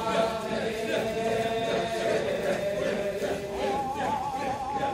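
Kiyari, the traditional Japanese work chant, sung by voices in long drawn-out, wavering notes. A higher held note comes in about three and a half seconds in.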